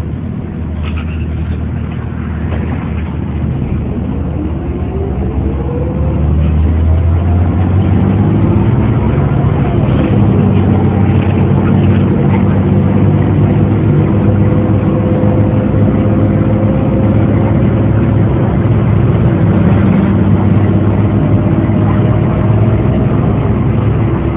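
2002 ElDorado EZ-Rider II transit bus heard from inside the cabin, pulling away and accelerating. Its engine drone grows louder about six seconds in, with a whine that rises in pitch, then runs steadily at speed.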